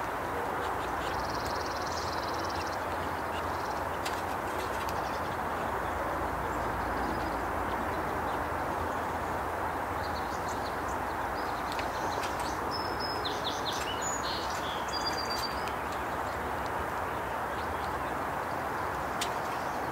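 Steady outdoor background rush with faint, high songbird chirps over it: a short buzzy call about two seconds in and a cluster of quick chirps a little past halfway.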